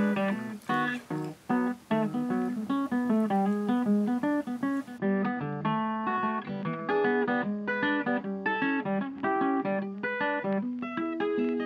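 Background music: an acoustic guitar picking a quick, continuous run of notes.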